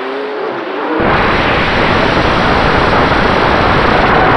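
FPV quadcopter motors whining with a wavering pitch, heard from the onboard camera. About a second in, loud wind rush on the camera's microphone comes in suddenly and covers the motors, staying steady to the end.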